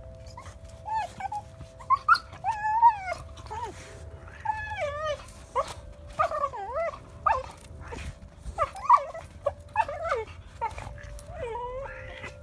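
A dog whining and yipping over and over in short, high cries that bend up and down in pitch, while playing with a cat.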